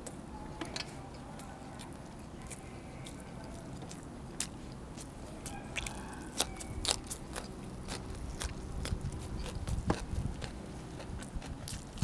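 Close-up eating sounds of a person biting and chewing pork ribs and raw vegetables. Many sharp, irregular clicks and crunches come through, thickest about nine to eleven seconds in.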